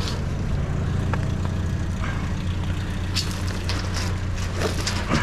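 Engine idling steadily, a low hum, with a few short clicks and scrapes of metal and debris being handled.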